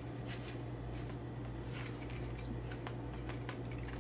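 Taco seasoning mix shaken out of a shaker bottle over a pot: a few soft, short shakes, roughly in pairs about a second and a half apart, over a steady low hum.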